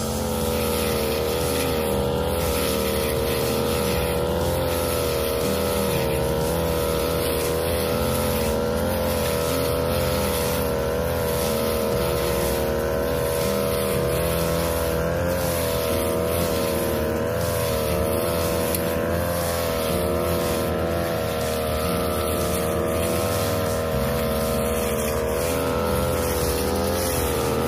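A 42cc backpack brush cutter's engine running steadily at high speed while its blade cuts through tall grass, its pitch wavering slightly as the load changes.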